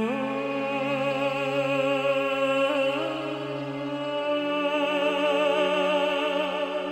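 Music: a woman's voice sings long, slow notes with a wide vibrato over a low, steady synthesizer drone. The voice slides up into a new note at the start and again about three seconds in.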